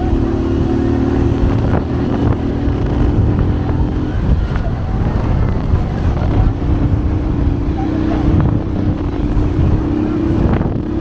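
Motorcycle engine running while riding, with a low rumble and wind on the microphone. The engine note eases off about four seconds in and picks up again a couple of seconds later.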